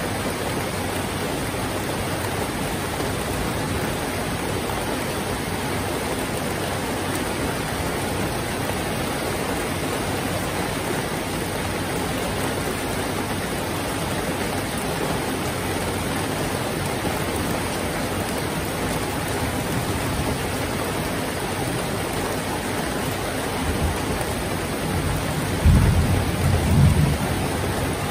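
Heavy rain falling steadily, with a low rumble of thunder swelling near the end.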